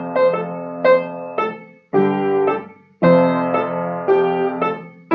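Intro music played on a piano or keyboard: a short, bouncy phrase of struck chords that each ring and fade, starting over about three seconds in.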